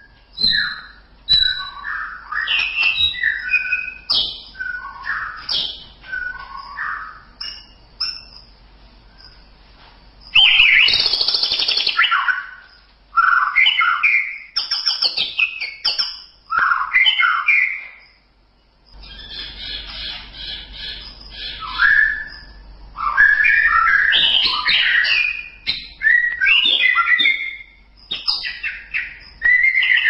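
White-rumped shama (murai batu) singing a long run of varied whistled phrases, broken by short pauses, with a harsher, buzzier phrase about ten seconds in.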